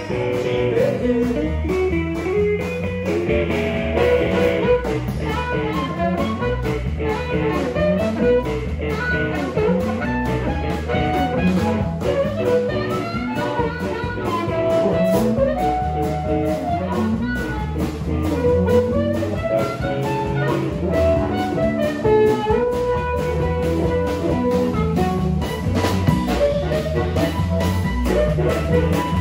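Live blues band playing: electric guitar, electric bass and drum kit, with an amplified harmonica played through a hand-held microphone.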